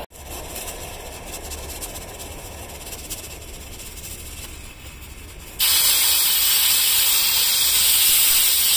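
A loud steady hiss of escaping steam starts suddenly about halfway through and runs for about four seconds: a pressure cooker of rice venting steam. Before it there is a quieter steady background with faint crackles.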